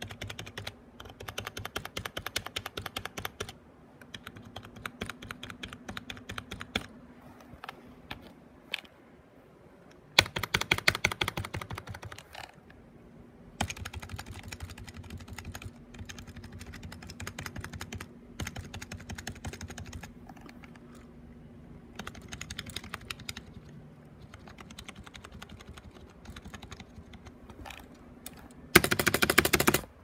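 Membrane keyboard keys being pressed in rapid bursts of clicks with short pauses between them; the loudest bursts come about ten seconds in and just before the end.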